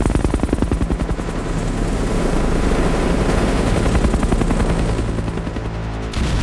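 Military helicopter rotors chopping rapidly and steadily over a low engine drone, cutting off abruptly near the end.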